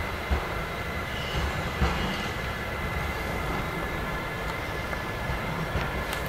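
Siemens Vectron electric locomotive rolling slowly over station points with a steady low rumble, a faint steady high-pitched tone and a few light clicks.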